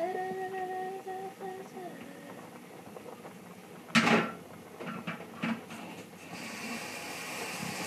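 A voice holds one hummed note at first. About four seconds in, a bowl knocks sharply against a stainless-steel kitchen sink, with a few lighter clinks after. Near the end the kitchen faucet is turned on and water starts running into the sink with a steady hiss.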